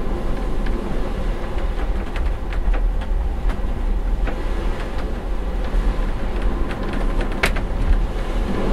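Inside a ferry's cabin in fairly rough seas: the ship's engines rumble steadily, with scattered ticks and rattles of the cabin as the ship works, the sharpest about seven and a half seconds in.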